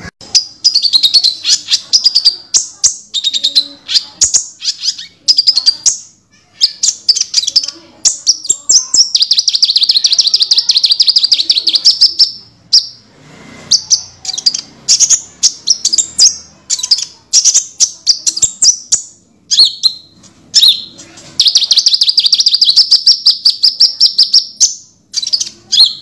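Crimson sunbird (burung konin) singing: rapid strings of high-pitched chirps and twitters in phrases, with two longer continuous trills, one in the first half and one near the end.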